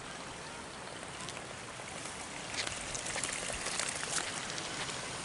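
Running water with splashing drops, growing a little louder about two and a half seconds in, where sharp drip and splash sounds come thick and fast.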